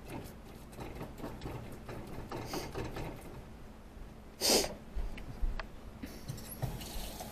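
Kitchen handling noises: scattered light clicks, taps and scrapes, with one brief, louder burst of noise about four and a half seconds in.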